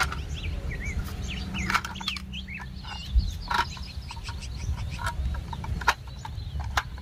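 Sharp plastic clicks and knocks as the clear shell of a transparent gear-train toy is fitted and handled, with birds chirping in the background, mostly in the first half, over a low steady hum.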